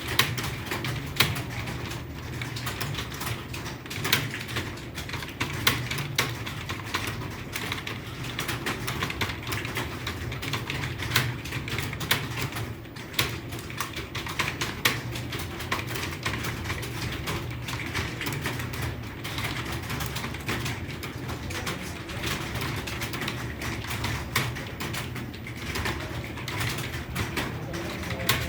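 Continuous fast typing on an Acer computer keyboard: a dense patter of key clicks with now and then a louder stroke, over a steady low hum.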